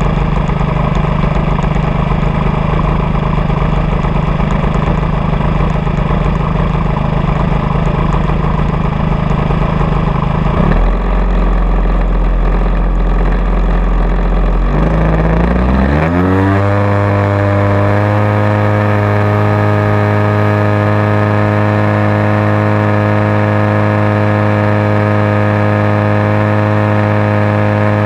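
Radio-controlled model aircraft engine heard close up, running steadily at low throttle. About halfway through, its pitch rises quickly as it is opened up for the takeoff run, and it then holds a steady high note at full power during the climb.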